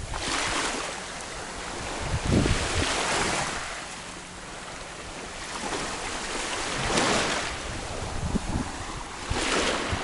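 Sea waves washing ashore, the noise swelling and falling back four times a few seconds apart.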